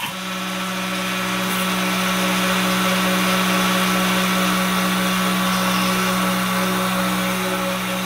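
Small CNC mill's spindle starting with a click, spinning up over about a second, then running steadily with a hum and hiss. It drives a 1 mm stub end mill feeding down to plunge a hole in a microcassette pinch roller arm.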